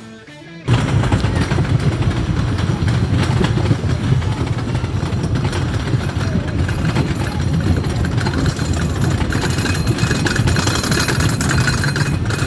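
Wooden roller coaster train being hauled up the chain lift hill, with a continuous loud mechanical rattling and clanking from the lift chain and track. It starts about a second in after a brief lull and carries on as the car reaches the crest.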